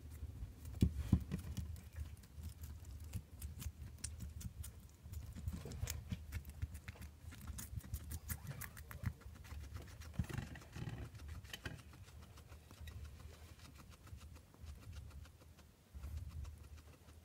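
Skinny pig (hairless guinea pig) chewing a cherry tomato: quick irregular wet munching clicks, thinning out in the last few seconds, over a low rumble.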